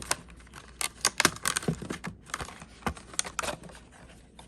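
Irregular light clicks and taps of a hand working a Gedore silent-gear ratcheting screwdriver back and forth. The ratchet itself gives no clear clicking, as a silent-gear ratchet is meant to.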